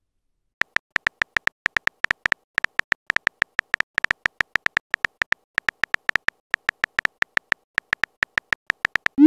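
Texting-app keyboard sounds: rapid short electronic ticks, one per keystroke, about five a second, starting about half a second in. A quick rising swoosh comes at the very end as the message is sent.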